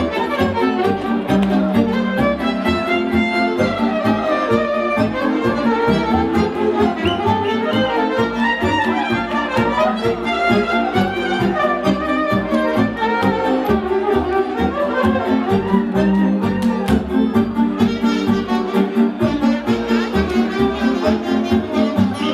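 Romanian folk dance music, with a violin leading the tune over keyboard accompaniment and a quick, steady beat.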